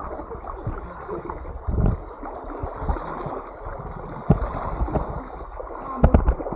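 River water rushing and gurgling, with several sudden thumps, the loudest a cluster about six seconds in.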